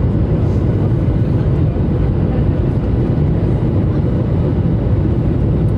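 Steady, loud airliner cabin noise from jet engines and airflow, heard from a window seat over the wing during the landing approach with flaps extended.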